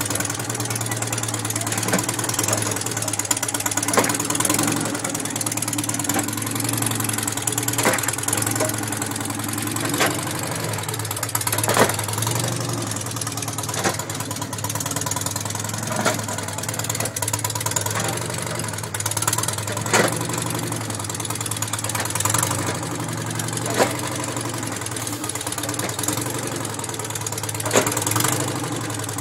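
Engine of a quad-bike-based walking robot running steadily at low speed, with a sharp clank about every two seconds as its mechanical legs step.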